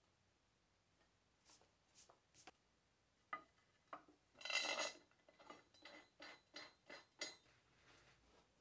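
Aluminium extrusion handled and set down on an oak board: a few light clicks and knocks, a brief scraping slide about halfway through that is the loudest sound, then a run of small taps as it is nudged into place. Quiet throughout.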